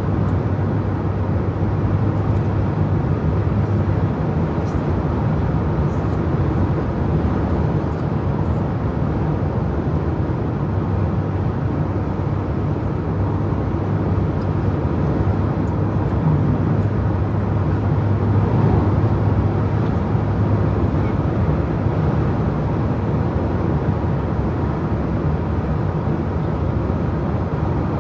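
A car driving at a steady road speed: a constant low drone of engine and tyre noise on the asphalt, swelling slightly about two-thirds of the way through.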